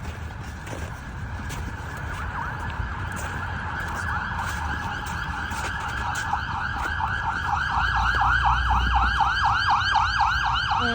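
Emergency vehicle siren in a fast yelp, sweeping up and down several times a second. It starts faint and grows steadily louder as it approaches, over a low rumble of street traffic.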